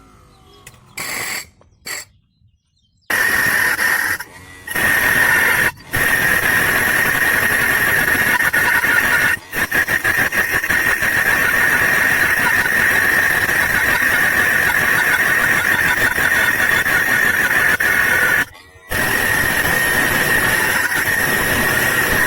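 Homemade angle grinder driven by an RS-775 DC motor, running with a loud, steady high-pitched squeal and hiss, broken off briefly a few times.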